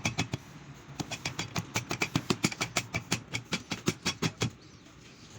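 Rapid, irregular metallic clicks and taps from tools and engine parts being handled during motorcycle engine assembly, several a second, some with a brief ring, thinning out near the end.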